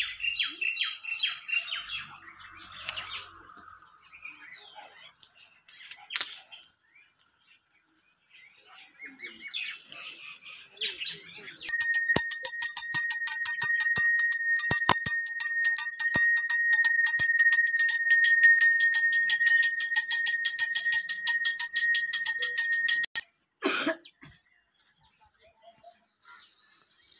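Brass temple bell rung rapidly and steadily in quick, even strokes during the puja, starting about twelve seconds in and stopping abruptly some eleven seconds later; this is the loudest sound. Faint bird chirps and a few knocks come before it.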